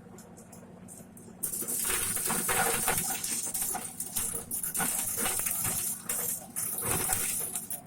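Motor-driven corn sheller running with a low hum. About a second and a half in, a loud, dense rattle of kernels starts as corn is stripped in the drum, and it stops just before the end.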